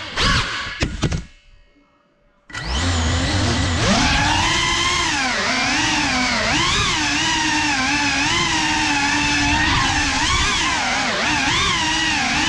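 FPV quadcopter's brushless motors and propellers. A few sharp knocks come in the first second, then the motors die away into about a second of near silence. About two and a half seconds in they spin back up with a brief low thump, and the whine rises and falls steadily with the throttle as the drone flies.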